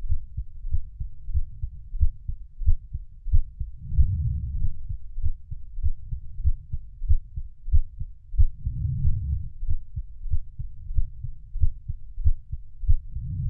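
Muffled, low-pitched heartbeat beating steadily at about one and a half beats a second, with a fuller low swell every four to five seconds.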